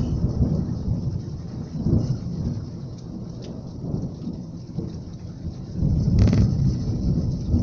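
Heavy rain falling steadily, with low rolling rumbles of thunder that swell right at the start, again about two seconds in, and longest around six seconds in.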